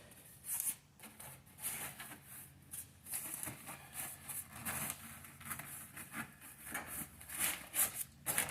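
Sheet of sound deadening material being handled and pressed into place: irregular crinkling and rustling scrapes, several a second, loudest near the end.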